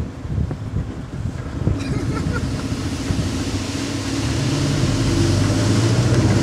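Mitsubishi Triton ute engine running as it drives along a dirt track towing a load, getting louder from about halfway through, with wind noise on the microphone.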